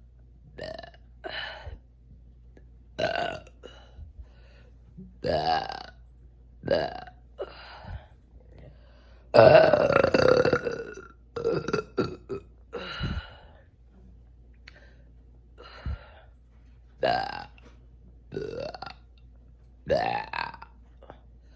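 Repeated belching brought on by drinking sparkling water: a string of short loud and soft burps, several rising in pitch, with one long, loudest burp about ten seconds in.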